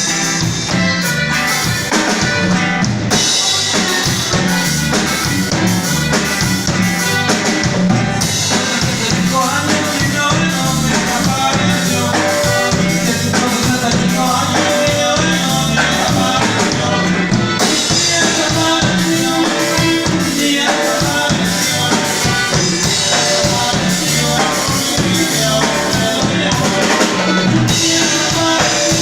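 Music with a steady drum beat and pitched instruments. It carries on without a break.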